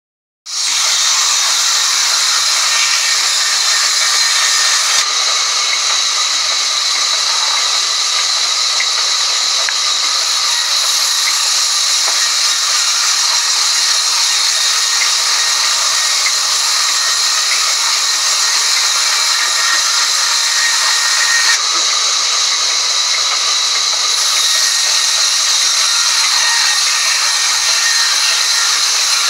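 Vertical band saw cutting lengthwise through a thick block of timber as it is pushed through the blade: a loud, steady, high hiss that keeps on without a break.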